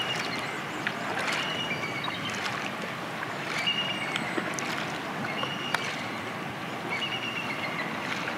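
Steady rush of a waterfall and stream, with scattered splashes of salmon jumping. Short high eagle calls come about four times.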